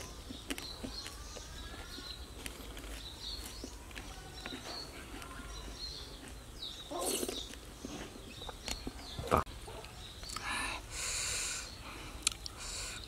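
Close eating sounds of a person chewing raw palm weevil larvae, with short sharp clicks of chopsticks and one louder click about nine seconds in. Small birds chirp in the background.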